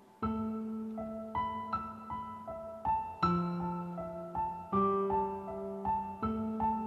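Soft piano music: a slow melody of single notes, two or three a second, over long held bass notes. It comes in a moment after a brief near-quiet start.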